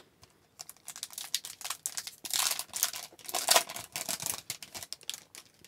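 A foil Upper Deck hockey card pack crinkling and being torn open by hand: dense crackling foil that starts about half a second in, with louder tearing peaks in the middle.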